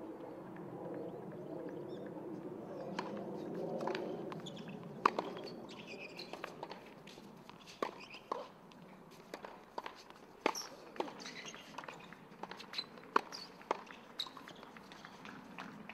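Hard tennis court between points: a low murmur for the first few seconds, then scattered sharp taps and knocks at irregular intervals, the loudest about five seconds in.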